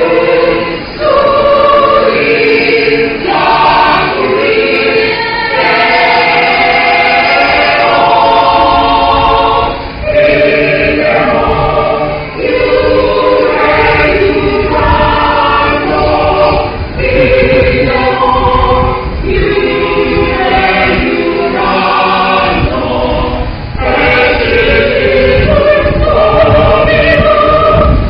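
Catholic church choir singing, its phrases of held notes broken by brief pauses for breath.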